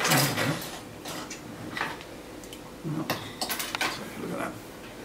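Scattered light clicks and knocks of small hard objects, with a cluster of several in quick succession about three seconds in.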